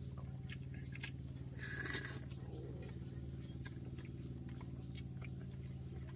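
Faint dusk ambience: a steady high-pitched insect drone over a low hum, with small scattered clicks of spoons in bowls and slurping as noodles are eaten.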